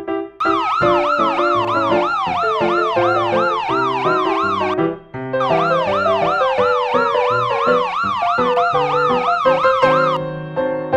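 Police siren warbling fast, about three up-down sweeps a second, in two stretches of about four and a half seconds with a short break near the middle. Piano music plays underneath.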